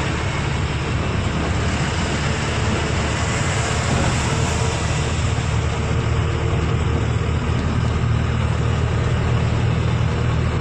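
Truck engine running steadily at road speed, with a constant low hum over tyre and road noise, heard from inside the cab.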